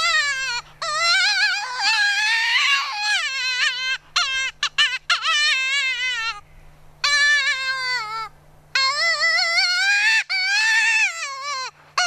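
DWO Signature Series predator call sounding long wavering, wailing distress cries that rise and fall in pitch, broken by short pauses, with a quick run of short choppy notes about four seconds in. The cries imitate prey in distress, to lure coyotes out of the woods.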